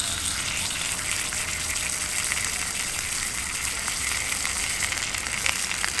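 Steak frying in olive oil in a cast-iron skillet: a steady sizzle with scattered small pops and crackles.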